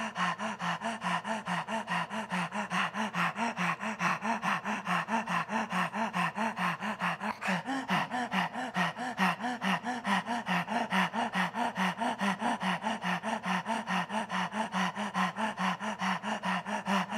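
A man panting rapidly and rhythmically through the open mouth with the tongue stuck out: Kundalini yoga 'dog breath' pranayama, a fast diaphragmatic in-and-out breath. Steady and even, about three pants a second.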